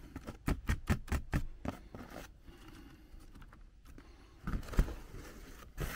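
Small clicks and scrapes of hex nuts being spun by hand onto the threaded U-bolts of stainless steel wire rope clips, with the cable shifting on cardboard. A quick run of clicks in the first two seconds, a few more near the end.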